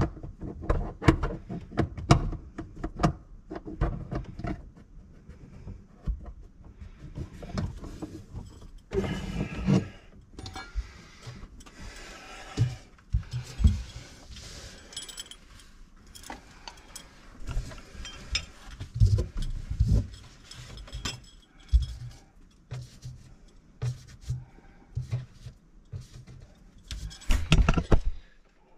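Irregular knocks, clicks and rustling of objects being handled, with a few louder clattering stretches.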